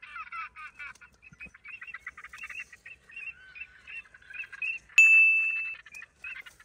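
A flock of waterfowl calling overhead in a fast, dense chatter of short calls. About five seconds in there is a sudden, loud, clear ding that rings and fades out within a second.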